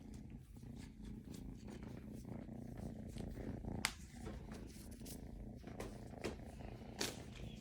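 Cat purring steadily, a low continuous purr with a few faint clicks.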